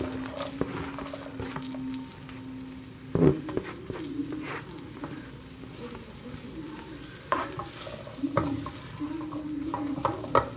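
Onion sautéing in melted butter and a little olive oil in a pan: a steady sizzle while it is stirred. The stirring utensil knocks against the pan several times, loudest about three seconds in.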